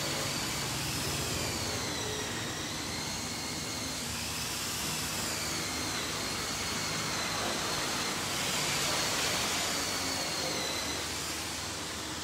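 A steady whooshing machine noise with a high whine that wavers slowly up and down in pitch.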